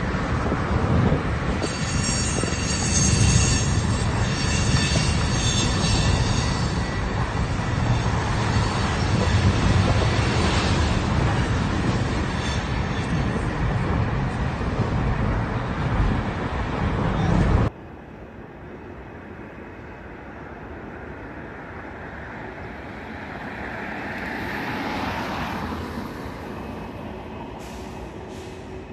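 A train running close by, a loud rumble with its wheels squealing on the rails in several high, steady tones for a stretch early on. The sound cuts off abruptly about two-thirds of the way in. After that comes a much quieter background, with a softer sound that swells and fades near the end.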